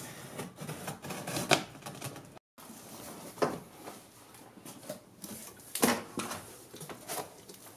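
A knife slicing and scratching along the packing tape on a cardboard box, then the box's cardboard flaps being pulled open with scraping and rustling, punctuated by a few sharp knocks.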